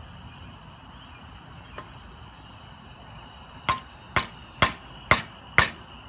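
Saucepan used as a mallet, knocking a wine cork into the open end of a bicycle handlebar: one faint tap, then five sharp knocks about two a second in the second half.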